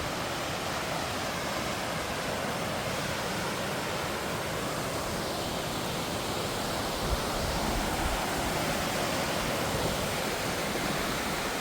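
Waterfall: a steady rush of falling water, with a brief low thump about seven seconds in.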